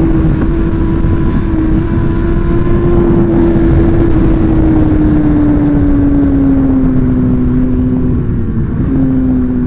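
Suzuki GSX-R1000's inline-four engine running under way at high revs, its pitch slowly sinking through most of the stretch with a short step up near the end, over heavy wind rush.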